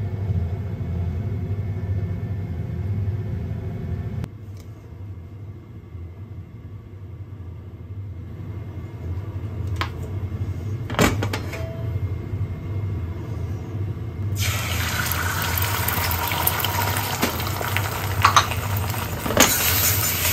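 A steady low hum from the stovetop smoker on the gas burner, quieter after about four seconds, with a single sharp knock midway. About two-thirds of the way in, beaten egg hits hot oil in an iron wok and sizzles loudly as it is stirred.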